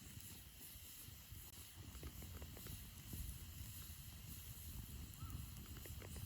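Faint outdoor ambience: a low rumble of wind on the microphone with a few faint scattered ticks, and a couple of short high chirps near the end.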